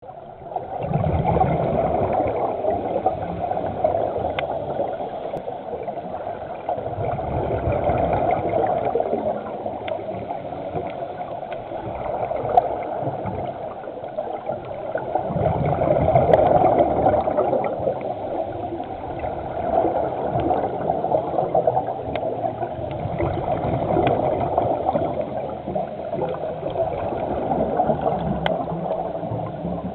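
Underwater sound heard through a camera housing: a steady muffled wash of water, with the diver's scuba regulator exhaust bubbles gurgling up every five to seven seconds with each breath out, and a few faint clicks.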